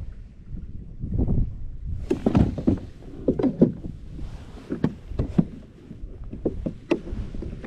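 Irregular knocks, bumps and scrapes on a fishing kayak, from a paddle and gear moving against the hull.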